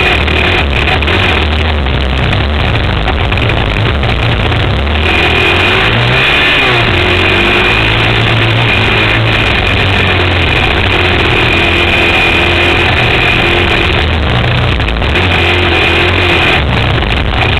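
Sport quad's engine running hard and revving up and down, the pitch rising and falling, heard from a camera mounted on the machine as it rides through loose sand.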